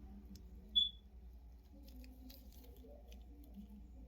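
Quiet handling of a plastic action figure: faint small clicks as its joints are moved, with one brief high-pitched squeak about a second in.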